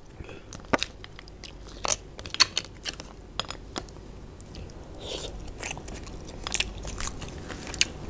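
Eating crab close to a table microphone: chewing with irregular sharp mouth clicks, and a metal spoon scraping roe and meat out of the crab's shell.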